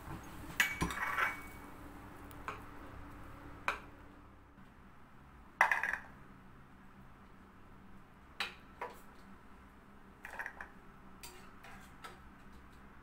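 Scattered clinks and knocks of a spoon and boiled almonds against a pan and a ceramic plate as the blanched almonds are spooned out onto the plate, about ten separate strikes with the loudest knock about five and a half seconds in.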